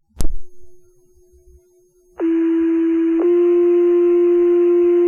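Fire dispatch two-tone sequential page over the radio: a key-up click, then about two seconds in a steady low tone for about a second that steps to a slightly higher tone and is held. These are the alert tones that set off the volunteer firefighters' pagers.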